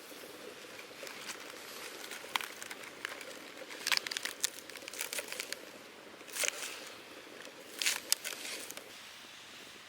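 Crinkling and rustling of handled packaging, with several sharp crackles over a faint steady background hiss.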